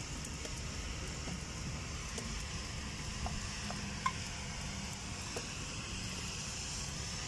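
Distant road traffic: a concrete mixer truck driving along the road, a steady low engine hum under a soft outdoor hiss. A brief high chirp about four seconds in.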